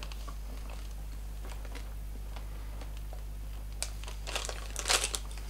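Snack packaging crinkling: a low steady room hum with a few faint ticks, then crackly rustling near the end.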